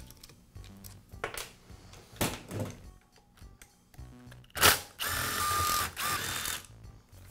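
Cordless screwdriver running, backing out screws from a circular saw's motor housing: a click, then a steady whining run of about a second, and a shorter second run just after. A few light knocks of metal parts being handled come before it.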